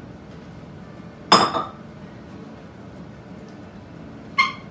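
A metal serving spoon clanks against a slow-cooker crock twice: a short clatter about a second in, then a brief ringing clink near the end.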